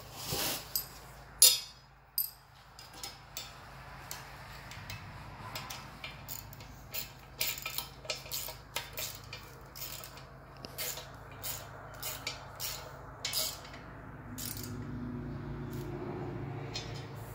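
Light metal clicks and clinks, one or two a second, as mounting brackets are bolted onto a front-mount intercooler with washers, nuts and an Allen key. The sharpest knock comes about a second and a half in.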